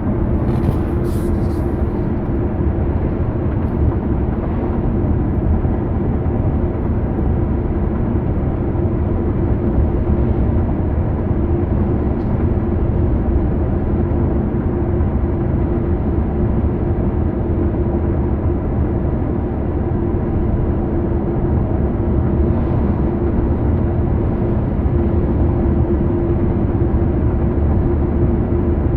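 Steady road and tyre noise inside a moving 2009 Ford Fusion, with a constant hum running through it that swells somewhat near the end: the drone of a worn wheel hub bearing, which has gotten a little louder.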